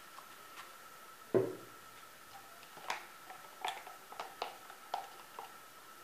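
Scattered light clicks and taps of paint-pouring tools, plastic cups and squeeze bottles being handled, with one louder thump about a second and a half in, over a faint steady high-pitched tone.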